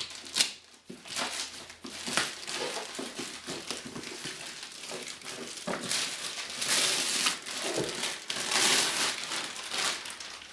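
Postal parcel wrapping being pulled open and handled: irregular crinkling and crumpling with scattered crackles and clicks, loudest in a stretch past the middle.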